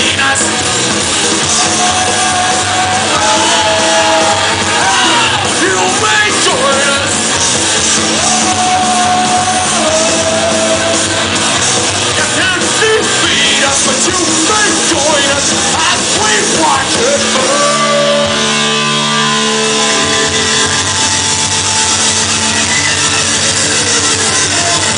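Live punk rock band playing loud with electric guitars, bass and drums, a singer shouting and singing over them. About two-thirds of the way in the vocals stop and the band plays on with held chords.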